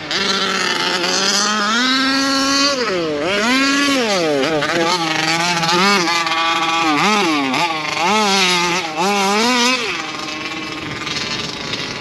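Taylor RC 55cc two-stroke engine of a Losi 5ive-T RC truck revving up and down repeatedly under throttle blips. About ten seconds in it drops back to a lower, steadier running.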